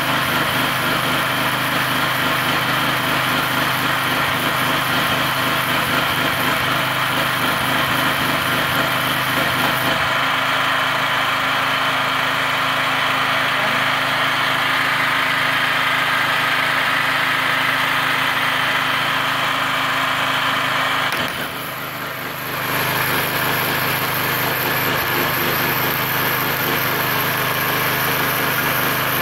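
Gasless flux-core MIG welding arc crackling steadily over a gasoline generator engine running under the welder's load. The arc breaks off briefly about two-thirds of the way through, then strikes again.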